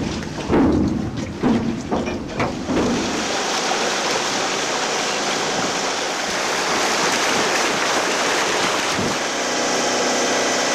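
Wind buffeting the microphone in gusts, then a steady rushing hiss of wind and water past a sailing yacht under way.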